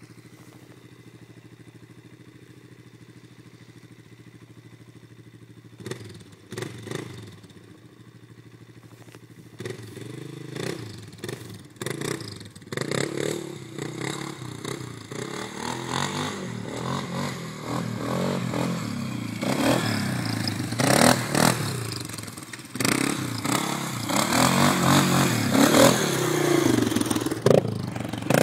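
Polaris Scrambler 500 4x4 quad's single-cylinder four-stroke engine, steady and faint at first, then growing louder from about six seconds in and revving up and down as it is ridden over rough dirt. Scattered knocks and clatters, loudest near the end.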